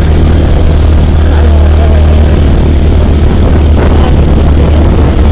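A vehicle engine running steadily and loud, with a deep low hum.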